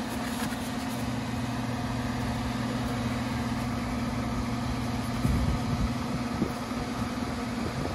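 Newly replaced indoor blower of a gas package unit running on a fan call, moving air with a steady hum. A brief low rumble about five seconds in.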